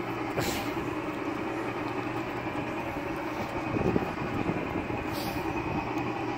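Carousel International 'Carousel Express' kiddie train ride running, a steady mechanical hum with two short hisses, about half a second in and about five seconds in.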